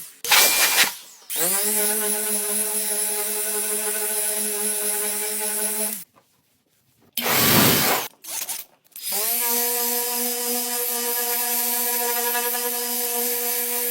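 Handheld electric power tool, such as a rotary polisher or drill used in car detailing, spinning up and running at a steady pitch. It stops about six seconds in and starts again about nine seconds in. Short loud bursts of hissing noise come near the start and around eight seconds.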